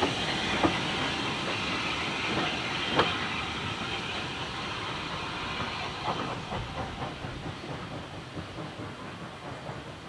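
Steam-hauled passenger train rolling away, its wheels clicking over the rail joints a few times, over a steady hiss that fades as it goes.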